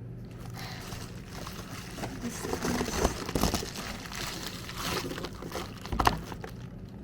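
Packaging rustling and crinkling as a parcel is opened by hand, with a few sharper taps and a dull thump about six seconds in.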